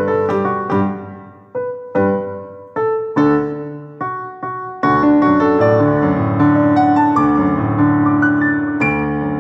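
Keyboard in a piano voice playing a Guatemalan melody. For about the first five seconds it plays struck notes and chords that ring and fade, then fuller held chords.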